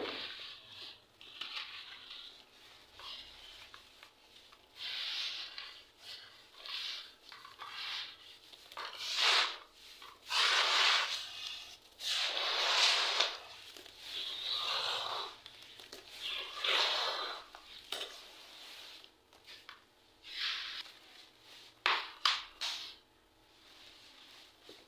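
Hands squeezing and crumbling wet charcoal clumps in a bowl of water: an irregular run of squelching, crunching swells, each half a second to a second long, heaviest in the middle stretch.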